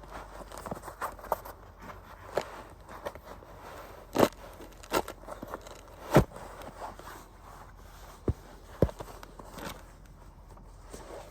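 Footsteps crunching through dry woodland litter, irregular and uneven, with several sharp cracks like snapping sticks; the loudest come about four to six seconds in.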